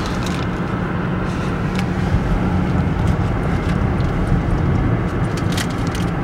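Steady road noise of a car driving, heard from inside the cabin: low engine hum and tyre rumble, with a few faint light ticks.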